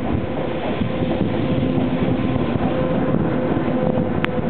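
JR Freight EF210 electric locomotive passing close by at the head of a container freight train: a steady rumble of wheels and running gear with a steady hum through it. A single sharp click comes near the end.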